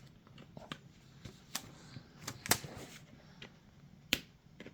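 Packaging being handled and pulled along its tear line: scattered small clicks and crackles, with a short rustle about halfway through.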